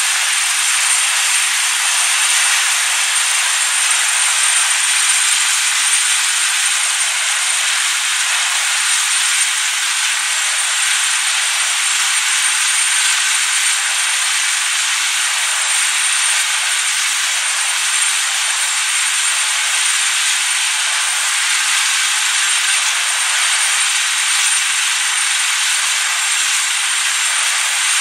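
Several Airbus H225M twin-turbine helicopters running with rotors turning: a steady loud rush of turbine and rotor noise with a thin, steady high-pitched whine over it.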